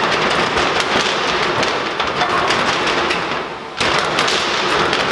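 MIG welding arc crackling steadily in a dense run of rapid clicks. It stops about three and a half seconds in, and the arc strikes up again a moment later.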